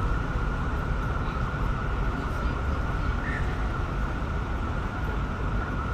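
Steady city street traffic noise, a continuous even wash of passing vehicles with no single event standing out.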